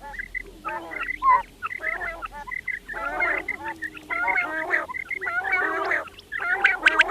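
Several quails calling together, a dense run of overlapping chattering calls that grows busier about three seconds in and eases briefly near the end.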